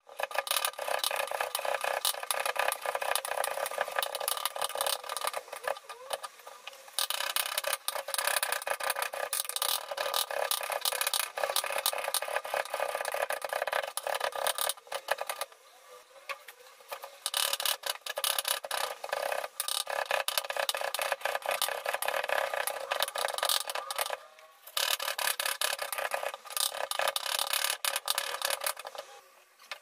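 Kitchen knife rapidly chopping cabbage fine on a wooden cutting board: quick, dense knocks with a crunch, broken by a few short pauses.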